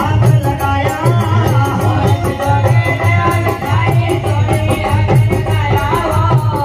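Live Rajasthani devotional bhajan: a man singing over a steady drum beat, with large brass hand cymbals clashed in rhythm.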